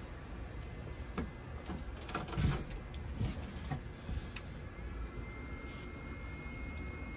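Knocks and clicks of an extension cord and plug being handled and pushed into a shore power inlet, the loudest about two and a half seconds in, over a steady low rumble. A faint steady high whine starts about five seconds in.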